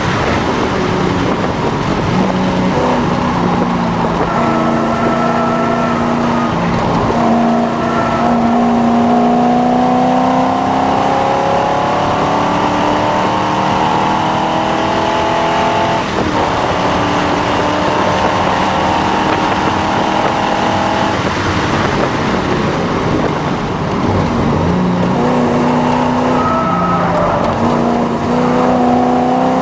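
Triumph TR7 V8's engine heard from inside the cabin during a flat-out sprint run. It rises in pitch through the gears, with breaks for gear changes, eases off about two-thirds of the way through, then pulls up again near the end, over road and wind noise.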